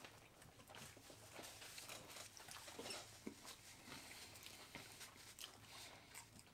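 Faint chewing of sub sandwiches with mouths closed: soft, scattered mouth clicks and smacks.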